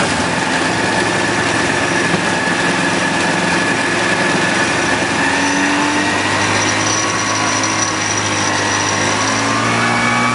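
Rans Coyote ultralight's engine running steadily, heard inside the cockpit over a steady hiss; its pitch edges up slightly near the end.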